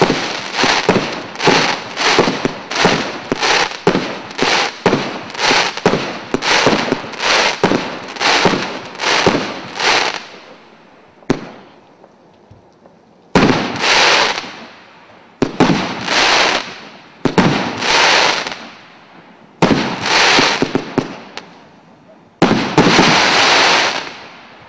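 Consumer fireworks battery (cake) firing: a quick run of shots about two a second for the first ten seconds, then after a short lull five bigger bursts a couple of seconds apart, each trailing off over a second or two.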